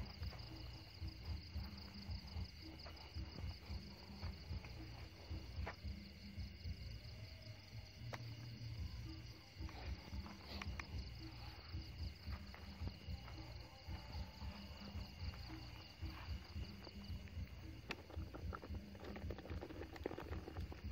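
Night chorus of crickets and other insects trilling steadily in two high, even tones; the higher trill fades out about three-quarters of the way through. A few light clicks and some brushing noise near the end.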